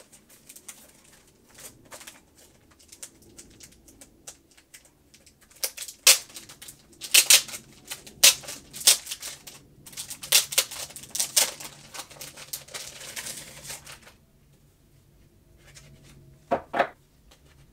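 Clear plastic wrapping crinkling and crackling as it is pulled open and worked off a stack of thick A4 photo cards, with a dense run of sharp crackles through the middle that then dies down.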